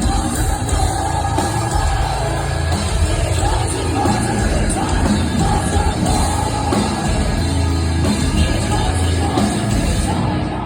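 Live metal band playing loud, heavy music with yelled, screamed vocals, reverberant in a large hall.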